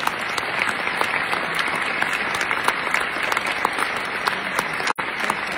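Banquet audience applauding: a dense mass of hand claps, with a split-second dropout about five seconds in.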